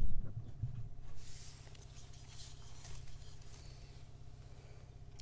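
Handling noise from a potted Stromanthe Triostar being lifted and moved: a few low bumps in the first second, then faint rustling of its leaves.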